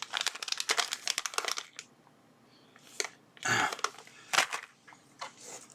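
Small plastic bags of DuPont jumper cables crinkling and rustling as they are handled, in a busy flurry at first, then after a pause in a few shorter bursts.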